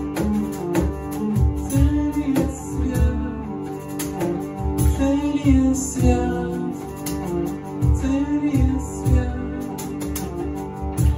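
Hurdy-gurdy playing a melody over its steady drone strings, with a cajon beating out a regular rhythm and a man singing.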